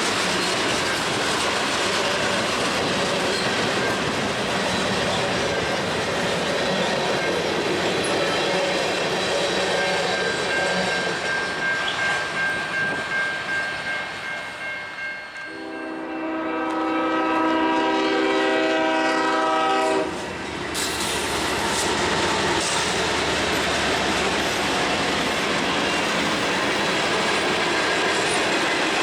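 Freight train running past, its wheels clacking rhythmically over the rail joints. About halfway through, the lead locomotive's air horn sounds one long blast of about four and a half seconds, then cuts off sharply.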